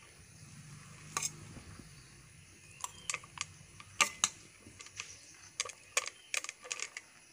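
A steel spoon clicking and scraping against a stainless-steel bowl and a small steel cup as puffed-rice churumuri is spooned into the cup: a string of light, irregular clicks, the sharpest about four seconds in.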